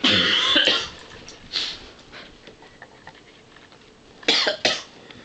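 A person coughing: a long, loud cough at the start, a smaller one about a second and a half in, and two quick coughs near the end.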